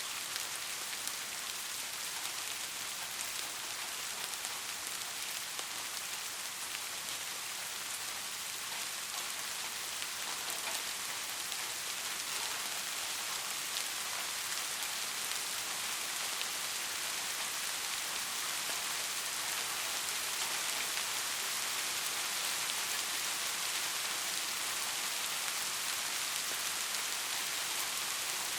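Soft, steady rain falling on a surface, an even hiss with many small scattered drop ticks, growing slightly heavier about halfway through.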